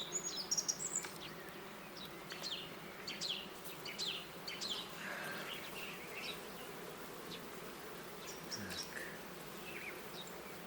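Honeybees buzzing steadily around an opened hive, a colony busy on a nectar flow, with short high chirps scattered over the hum.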